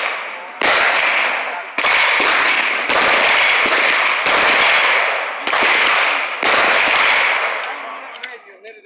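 Gunshots fired at a steady pace, six shots about a second apart. Each is a sharp crack followed by a long echoing tail.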